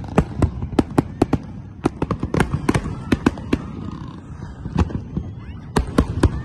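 Aerial fireworks bursting in rapid, irregular bangs, several a second at first, thinning out in the middle, then a quick cluster of bangs near the end.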